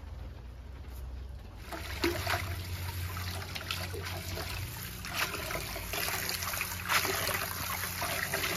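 Tap water running into a steel pot of fresh greens, starting about two seconds in, with irregular splashes as hands swish and rinse the herbs in the water.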